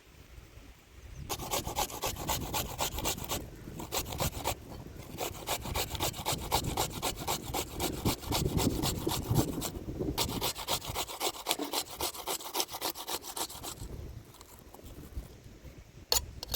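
Raw potato being grated on a hand grater: quick, even rasping strokes, broken by two short pauses, then a single click near the end.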